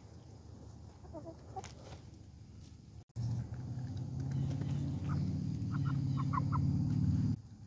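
Chickens clucking softly close to the ground. About three seconds in the sound cuts, and a loud low rumble takes over until shortly before the end, with a few short high chirps over it.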